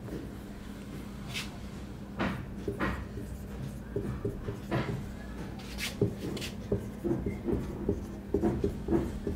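Marker pen writing on a whiteboard in a string of short strokes, over a steady low hum.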